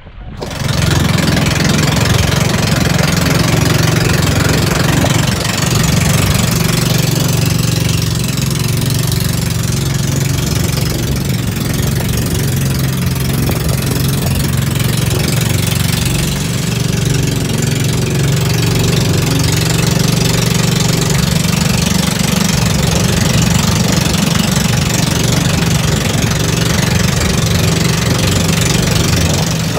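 A bangka outrigger boat's engine running steadily under way, a loud low drone that holds an even level throughout.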